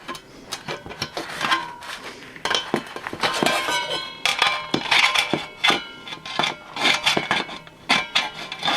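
Tin snips cutting thin stainless steel sheet: a run of sharp snips and metallic clinks, the steel ringing after them.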